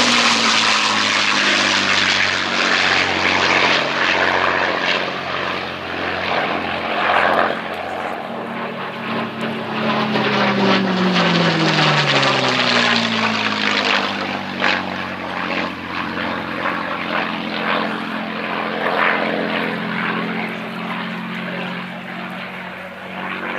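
Engine of a P-51D Mustang, a Packard Merlin V-12, running in a flypast, with a second piston fighter flying alongside at first. The engine note drops in pitch as the aircraft passes about ten to thirteen seconds in, and fades a little near the end.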